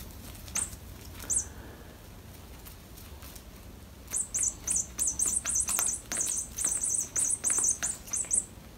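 Short, high-pitched squeaks from a small object that a cat is clutching and biting in its paws: a couple of single squeaks early on, then a rapid run of several squeaks a second from about halfway through.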